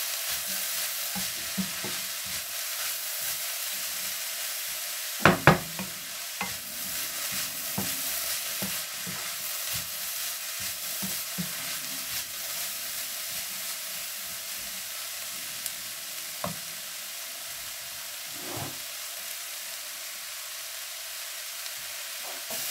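Chicken and shredded vegetables sizzling in a non-stick wok while a wooden spoon stirs and scrapes through them. There are two sharp knocks about five seconds in, and the stirring clicks thin out in the second half.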